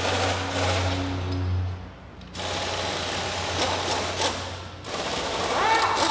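Pneumatic impact wrench rattling in three bursts, taking a Kia Cerato shock absorber apart from its coil spring.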